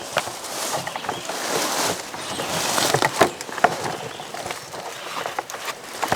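Rustling and crackling handling noise with scattered clicks, as the camera is moved and turned.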